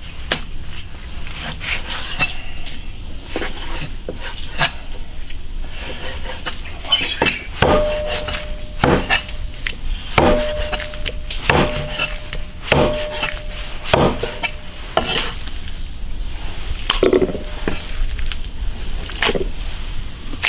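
Cleaver chopping beef brisket and tendon into chunks on a thick wooden chopping board: irregular sharp chops, several of them about halfway through leaving a short ringing tone.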